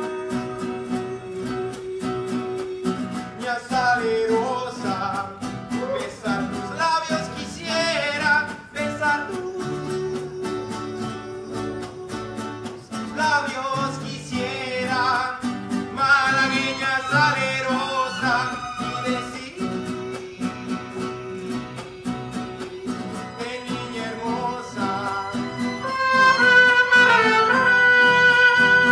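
Mariachi ensemble playing live: a male lead singer over violins and strummed guitars with a guitarrón bass. The trumpets come in loudly near the end.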